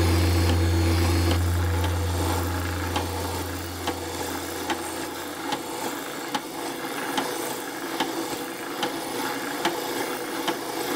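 Board being sanded on a drill-press oscillating spindle sander: the wood rubbing against the spinning sanding drum, with a light click a little more than once a second.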